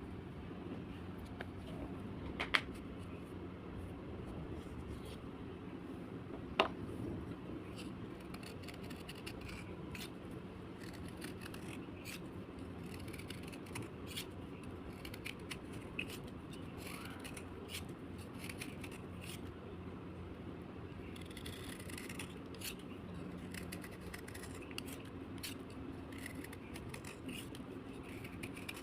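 Slate being scraped with a blade: a run of crisp, short scraping clicks, with two louder snaps, one about two and a half seconds in and one about six and a half seconds in, over a steady low hum.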